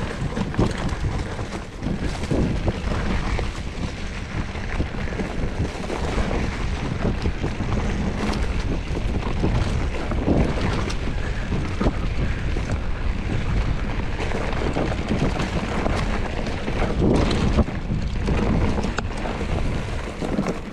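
Wind buffeting the microphone over the running noise of a Trek Fuel EX 7 mountain bike rolling along a forest singletrack, its tyres on dirt with scattered knocks and rattles as it goes over bumps.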